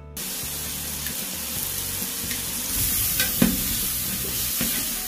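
Tomato-onion biriyani masala sizzling steadily in a large metal pot as yogurt is stirred into it with a ladle, with a few light scrapes of the ladle against the pot.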